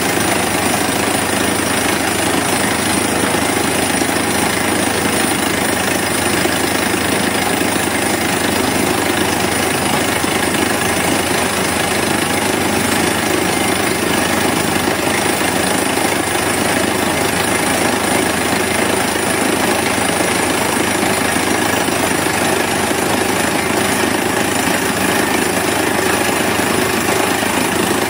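Borewell drilling rig boring with its air hammer: a steady, loud mechanical clatter and rush of compressed air blowing rock dust up out of the hole, over the rig's running engine.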